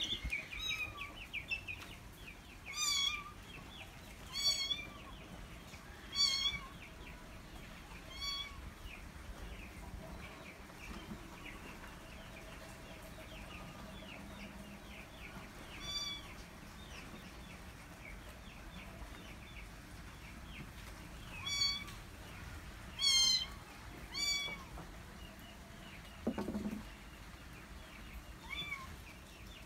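Kitten meowing repeatedly: about nine short, high mews with a rise-and-fall pitch, a second or more apart, some in quick pairs. Faint rapid high chirping runs underneath.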